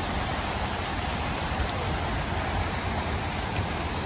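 Water from an artificial rain installation falling steadily like a downpour, a dense even patter of drops on the ground.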